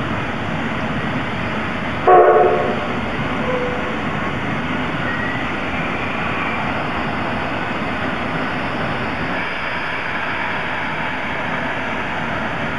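2-8-0 steam locomotive standing in steam with a steady hiss, giving one short toot of its steam whistle about two seconds in.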